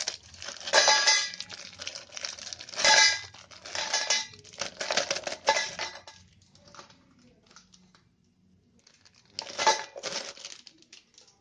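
Parle-G biscuits dropped by the handful into a stainless-steel mixer-grinder jar, clattering against the metal and each other in several bursts, with a lull of a couple of seconds before a final burst near the end.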